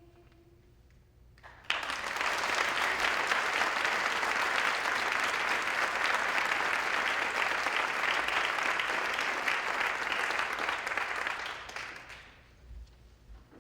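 Audience applauding: it breaks out suddenly a couple of seconds in, holds steady for about ten seconds, and dies away near the end.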